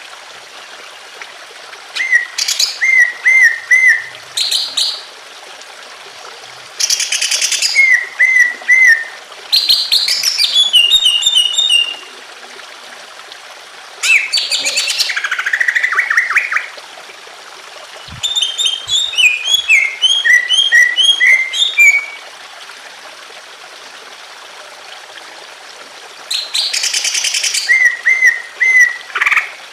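Green leafbird (cucak ijo) singing in six bouts of a few seconds each: fast runs of repeated chirps and short whistled notes. A steady trickle of water runs under it.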